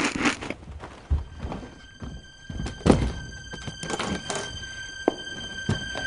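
Leather suitcase jumping and landing on wooden floorboards: a string of heavy thunks, the loudest about three seconds in. A held high note of music comes in about halfway and grows louder.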